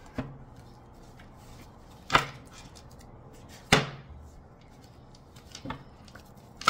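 Tarot cards being put down on a table: a handful of sharp slaps about one to two seconds apart, two of them louder than the rest.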